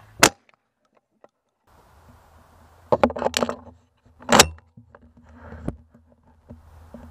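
A single 12-gauge shot from a Pointer Field Tek 4 semi-automatic shotgun just after the start, cut off abruptly. Later comes a run of sharp metallic clicks and clacks as the shotgun is handled, the loudest a single clack about four seconds in.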